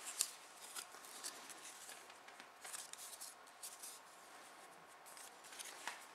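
Light clicks and rubbing as small plastic camcorder parts are handled: the Canon Vixia HG20's body and its opened LCD screen housing. The sharpest click comes just after the start, with scattered softer ticks after it.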